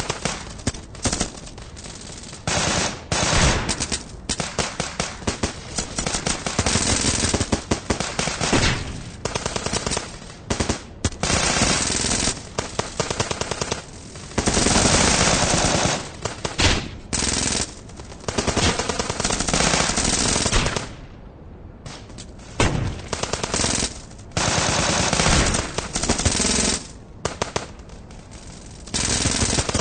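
Gunfight sound effect: bursts of rapid automatic gunfire, volleys of shots with short pauses between them and a brief lull a little past the middle.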